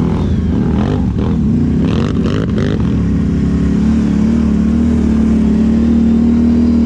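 ATV engine running under changing throttle, its pitch rising and falling for the first few seconds with a few short knocks, then holding a steady, slightly rising drone as the machine rides along a muddy trail.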